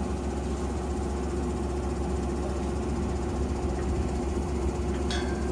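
Borewell drilling machine running steadily with an even, low engine hum. A short hiss comes near the end.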